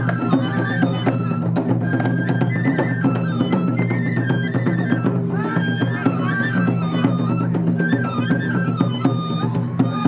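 Japanese shishimai (lion-dance) festival music: a high bamboo flute melody stepping between notes, over a steady low drone and repeated drum strikes.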